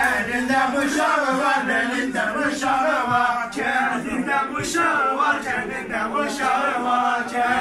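Group of men singing together in chorus, a chant-like folk song with a few sharp accents over it.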